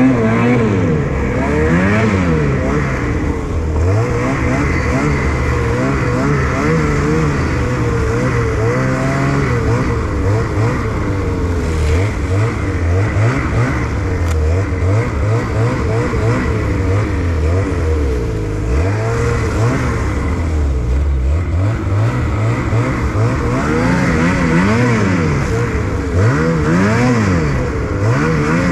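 Snowmobile engine running under riding load, its revs rising and falling again and again as the throttle is worked.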